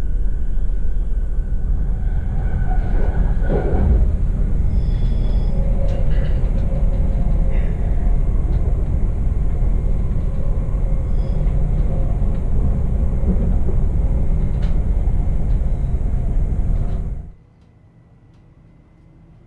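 Train running on the rails: a loud, steady rumble of wheels on track, with a few brief high squeaks. It cuts off suddenly about 17 seconds in.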